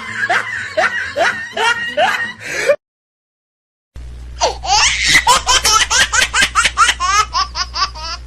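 Laughter in quick repeated bursts. It cuts out completely for about a second near the middle, then comes back higher and faster.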